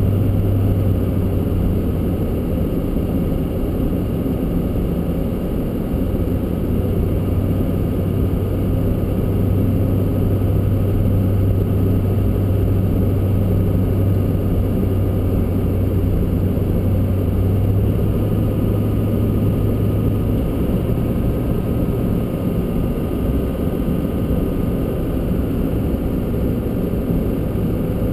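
A vehicle driving on a snow-covered road: a steady low engine hum over continuous tyre and road noise.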